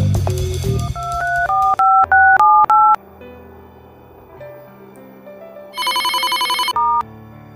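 Mobile phone keypad dialing: about eight quick two-tone DTMF beeps in a row, then, after a short lull over soft background music, a phone ringing with a fast warble for about a second.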